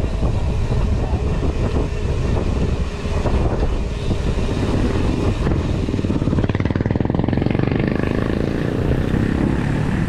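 Steady wind rush on the microphone and tyre rumble from a mountain bike riding fast on a concrete road. About halfway through, a motorcycle engine running close alongside joins in.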